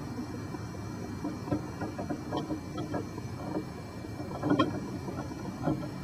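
Faint, scattered clicks and light knocks of plastic and metal parts being handled and fitted onto a car's steering column shaft, over a steady low background noise. The most distinct knocks come about two-thirds of the way through.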